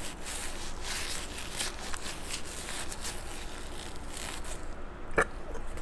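Close-up eating sounds from a plate of king crab legs: a run of small crackles and clicks, with one sharper snap about five seconds in.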